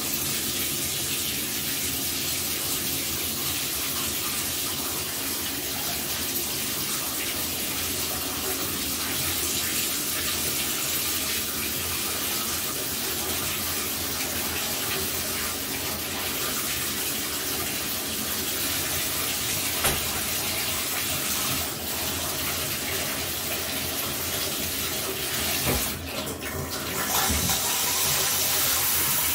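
Water running steadily from a bathtub faucet into the tub. About 26 seconds in, the flow briefly falters and changes as it is switched over to the handheld shower head.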